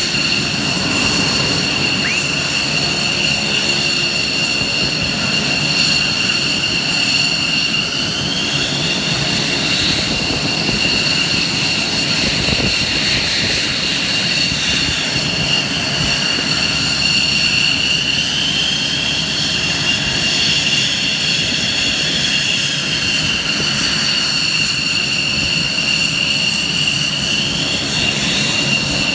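Military aircraft turbine engines idling on the apron: a loud, steady high-pitched whine over a rumble, with a second whine rising in pitch and falling back a few times as an engine spools up and down.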